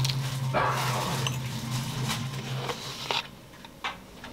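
Protein shake powder pouring from a plastic tub into a glass of water, a short rushing scrape, with a few light taps of a wooden chopstick on the tub. A low steady hum runs beneath and stops about three seconds in.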